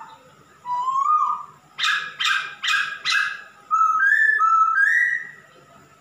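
Male black-throated laughingthrush singing in full voice: a clear slurred whistle, then four harsh rasping notes in quick succession, then three short rising whistles.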